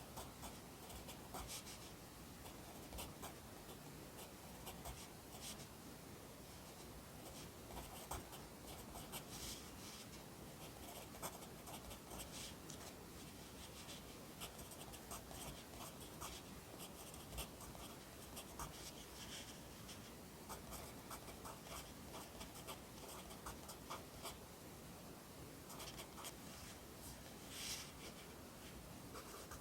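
Pencil writing Korean characters on paper: a steady run of short scratchy strokes, in quick clusters with small pauses between them.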